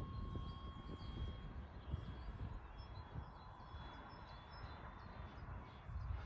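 Wind rumbling on the microphone, with scattered bird chirps and the faint steady whine of an electric RC model warplane's motor flying overhead.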